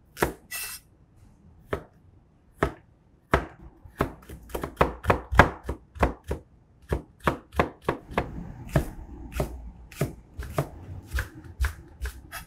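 Chef's knife cutting through carrot and then green onion onto a plastic cutting board. It starts with a few separate knocks, then settles into a steady run of quick slicing strokes, about three a second, from about four seconds in.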